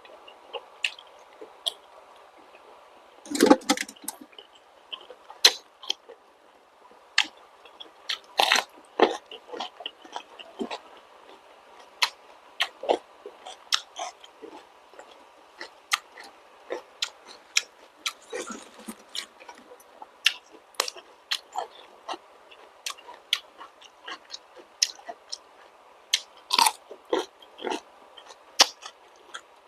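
Close-miked chewing and biting of balut (fertilised duck egg) with vegetables: irregular wet clicks and small crunches, with a louder bite a few seconds in and another around the middle.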